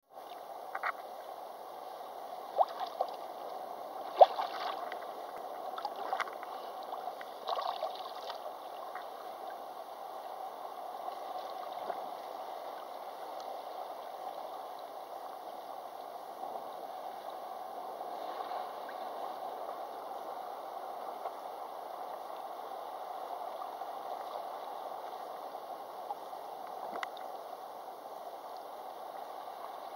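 Shallow seawater sloshing and gurgling around a camera held at the sea surface, a muffled steady wash. Several sharp knocks come in the first eight seconds, the loudest about four seconds in.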